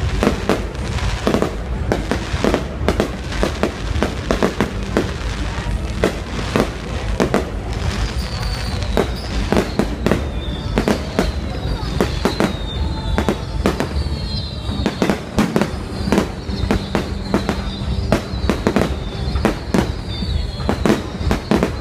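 Fireworks display: a rapid, unbroken series of bangs from bursting shells over a steady low rumble. From about eight seconds in, a short high falling whistle repeats roughly once a second.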